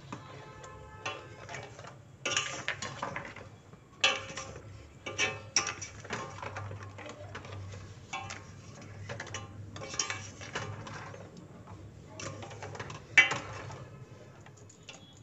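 Ladle scraping and knocking irregularly against a stainless steel pot while thick milk-and-rice payesh is stirred, with a few sharper clinks against the metal, over a steady low hum.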